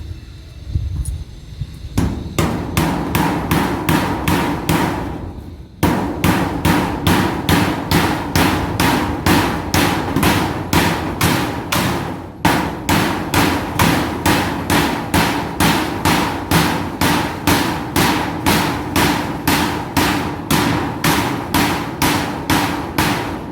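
Hammer driving nails through tin roofing sheets into the shed's wooden poles: steady, even strikes about two a second with a metallic ring from the sheet. It starts about two seconds in, with brief pauses twice.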